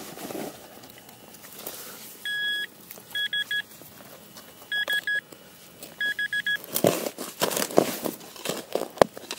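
Metal-detecting pinpointer beeping while it is probed in a freshly dug hole: one long beep about two seconds in, then three quick runs of rapid beeps, the sign of a metal target close to its tip. From about seven seconds a spade cuts and scrapes into the soil, and this is the loudest sound.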